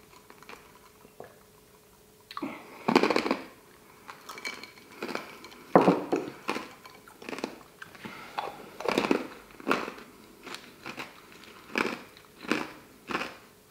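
A person chewing a mouthful of food close to the microphone. The mouth sounds come in short irregular bursts, roughly one a second, after a quiet first two seconds.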